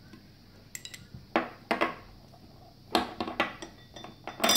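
The jaws of an underwater camera-arm clamp and 1-inch ball mounts clacking together as the balls are seated in the clamp: a few faint ticks, then sharp knocks in small clusters, the loudest near the end.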